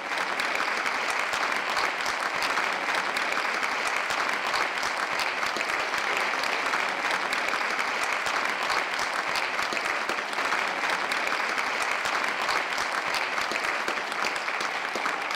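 Audience applauding steadily, a dense patter of many hands clapping at an even level throughout.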